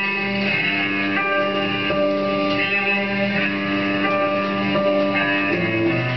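Background music soundtrack with held notes that change about once a second.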